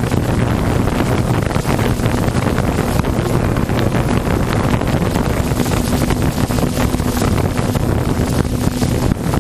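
Personal watercraft engines running steadily at race speed, with a low drone, and wind buffeting the microphone.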